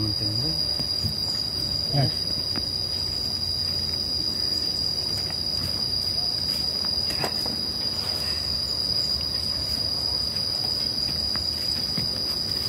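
Steady, high-pitched insect drone, one unbroken buzzing tone, with a few faint knocks now and then.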